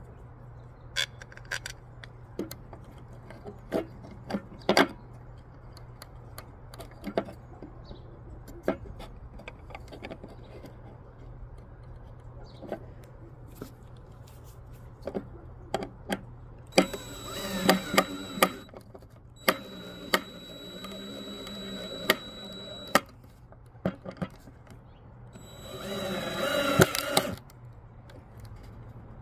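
Scattered clicks and taps of screws and a mounting bracket being handled against a wooden post, then a cordless drill driving screws into the wood in short runs with a high motor whine, starting about 17 seconds in and again near the end.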